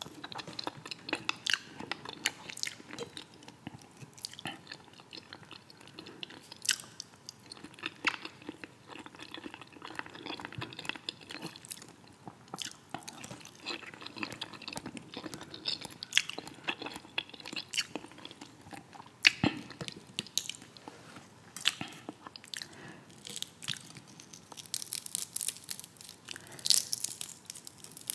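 Close-miked eating sounds: steady chewing with wet mouth sounds, crunches and sharp clicks. In the last few seconds there is a denser, hissy crackle as fingers pull apart the fried fish.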